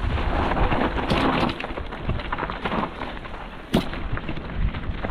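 Mountain bike riding a dirt trail: wind rumbling on the microphone, with tyres and bike rattling over the ground and a sharp knock nearly four seconds in.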